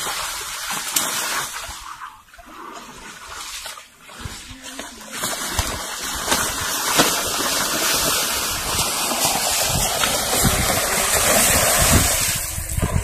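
Water and mud splashing and sloshing as two water buffalo shove against each other with locked horns in shallow water. A steady rushing noise grows louder from about five seconds in.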